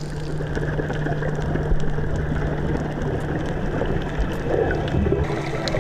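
Underwater gurgling of a scuba diver's exhaled bubbles from the regulator, over a steady low hum.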